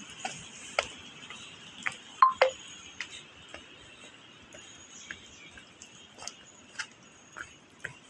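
Scattered sharp clicks and ticks at uneven intervals over a faint hiss, with two brief high chirp-like squeaks a little over two seconds in.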